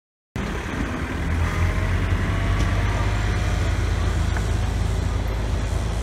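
After a brief silence, a large SUV's engine runs steadily with a low hum as it slowly tows a trailer-mounted swingblade sawmill across gravel.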